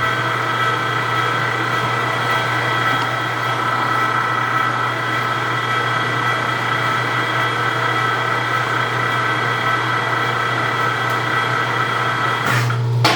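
Precision Matthews 1640 metal lathe running at 105 rpm in low range while turning a cold-rolled steel blank, with a steady whine of several high tones over a low hum. Near the end the whine cuts off after a brief noise, and the low hum gets louder.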